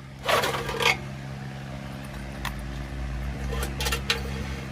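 Small metal clicks and clinks of parts and hand tools being handled during repair work, over a steady low hum, with a short scraping rasp near the start.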